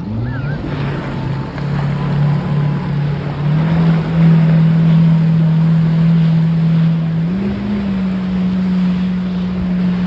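Motorboat engine running under throttle while towing an inflatable banana boat, its pitch stepping up several times as the boat speeds up. Wind buffets the microphone over rushing water.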